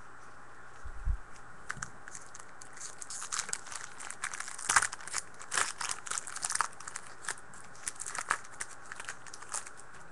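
Foil trading-card pack wrapper being torn open and crinkled, with a soft bump about a second in and irregular crackling that carries on until shortly before the end.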